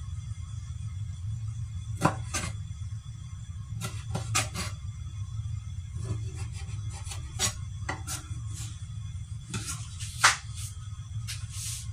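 Chef's knife chopping on a wooden cutting board: irregular sharp knife strikes, some in quick pairs, the loudest about ten seconds in, with the blade scraping across the board near the end.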